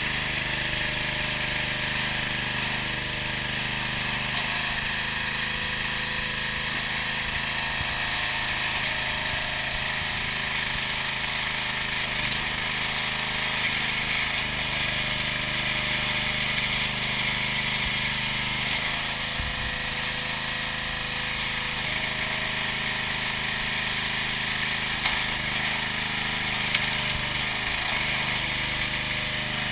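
Briggs & Stratton 6.5 hp petrol engine of an 18-tonne hydraulic log splitter running steadily, driving the hydraulic pump while a log is split. A couple of sharp knocks cut through it, one about 12 seconds in and one near the end.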